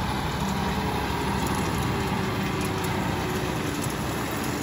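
John Deere tractor engine running steadily under load while pulling a twin-rotor rake through mown grass, rowing it up for silage.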